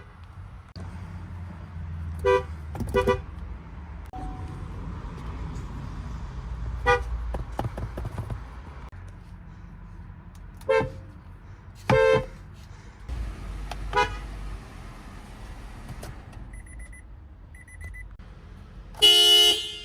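A string of short car horn honks from different vehicles, one after another over low street-traffic rumble. There is a double toot early on, then single toots a few seconds apart, and a louder, longer honk near the end. Two small high beeps sound shortly before that last honk.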